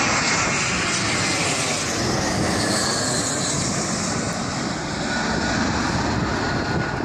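Jet airliner's engines as the plane passes close: a loud, steady rush of engine noise with a faint high whine.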